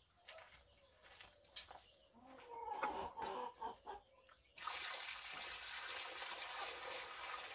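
Hens clucking, then water poured from a bucket into a chickens' drinker. The steady splashing pour starts about four and a half seconds in and is the loudest sound.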